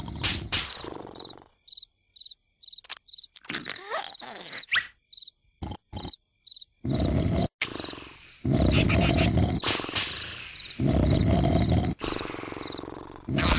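Crickets chirping in a regular rhythm, with a few short gliding squeaks. From about seven seconds in come three loud, long cartoon snores, each a second or two long.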